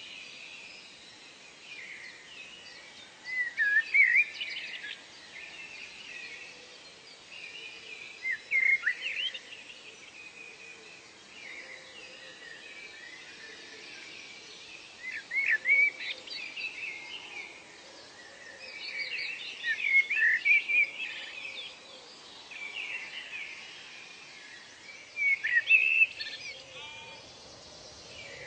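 Birds singing: short bursts of quick chirping song every few seconds over a steady background hiss of outdoor ambience.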